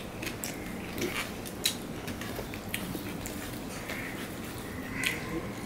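Eating sounds from a person eating rice and fish curry by hand: chewing and wet mouth sounds, with fingers mixing rice against a steel plate and scattered small clicks.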